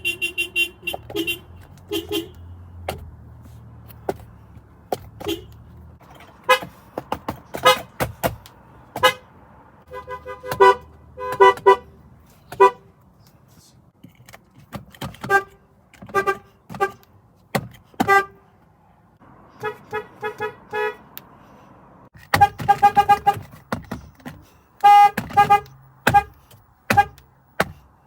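Car horns sounding in short taps and toots, often several in quick succession, with short pauses between runs. Several different horns follow one another, each at its own pitch.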